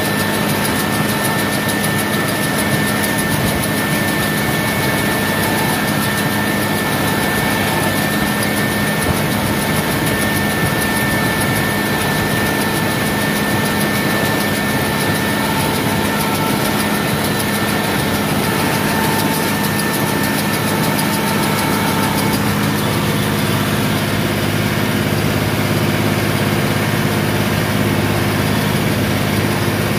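Tractor engine running steadily under load while driving a Hesston round baler along a hay windrow, with a steady high whine over it through the first half or so.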